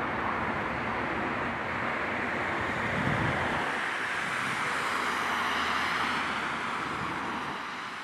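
Civil-defence warning siren sounding during a test alarm, heard at a distance over road noise. The low rumble of a passing car fades out about three and a half seconds in.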